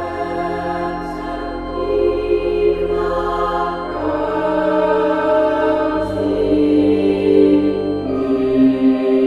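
Background music: slow, held chords that change every second or two, starting abruptly.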